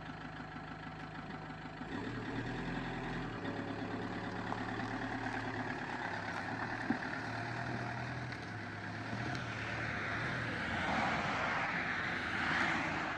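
Motorhome engine running, first idling, then getting louder about two seconds in as the van pulls away and drives off. A louder rushing noise rises near the end.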